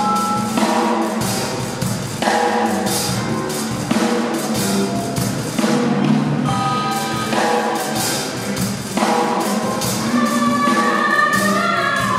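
Conducted free improvisation by a small ensemble of voices, vibraphone, harp, cello and percussion: frequent percussion strikes over a steady low tone, with held pitched notes and singing near the end.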